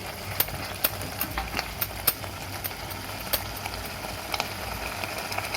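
Scattered light clicks and taps of a metal spoon against a cooking pan, over a steady low hum.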